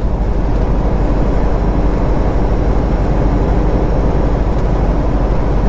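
Semi truck cruising at highway speed, heard from inside the cab: a steady diesel engine drone with tyre and road noise.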